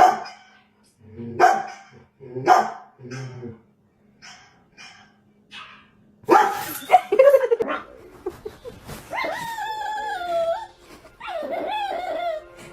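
Dog barking, a run of short single barks about one every half-second to second, growing fainter, followed by longer wavering vocal sounds.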